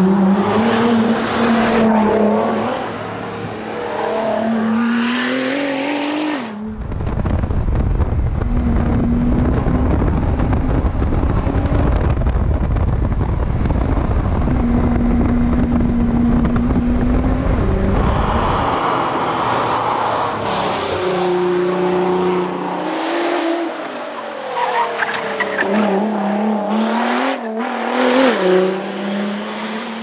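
Nissan R35 GT-R's twin-turbo V6 revving hard at racing speed, its pitch climbing and dropping again and again through gear changes. For about twelve seconds in the middle, heavy wind buffeting on a camera mounted low on the car's side covers the engine, with only a steady drone audible through it.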